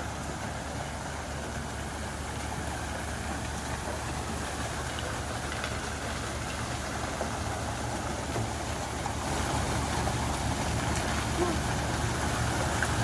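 A heavy engine running steadily, its deep drone growing somewhat louder about nine seconds in.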